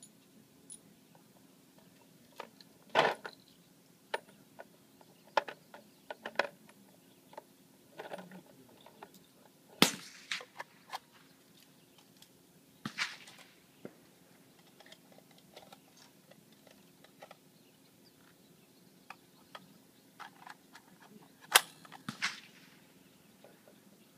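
Scattered clicks, knocks and a few sharper snaps from handling a plastic ammo box and cartridges at a shooting bench, with no rifle shot fired.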